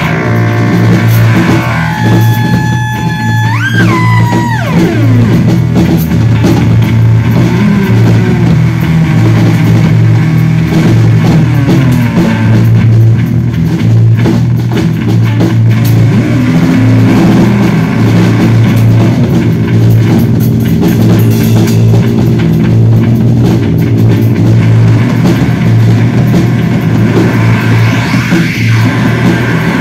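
Loud live instrumental rock from an electric bass guitar run through effects pedals, with a drum kit. A heavy low bass drone runs throughout. A high held effects tone dives steeply in pitch about four seconds in, and more downward slides follow later.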